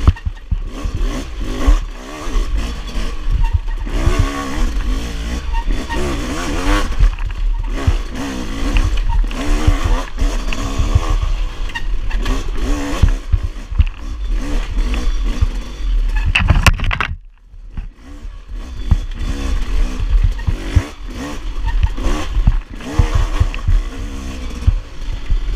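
Enduro dirt bike's engine revving up and down constantly as it is ridden over a rough woods trail, with knocks and rattles from the bumps. The engine sound cuts away briefly about two-thirds of the way through, then picks up again.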